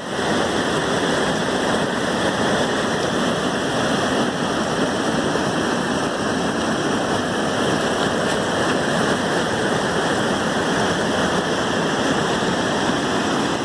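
Loud, steady rush of the flooded Kali river's water, an even roar with no breaks.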